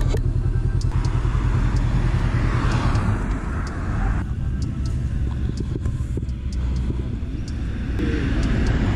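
Steady low outdoor rumble of road noise and wind. A rushing hiss swells about a second in and stops about four seconds in, then comes back near the end.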